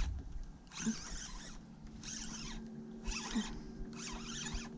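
Daiwa BG 3500 spinning reel being cranked as a hooked striped bass is reeled in: a rasping whir in short runs about once a second. A faint steady hum comes in under it about halfway through.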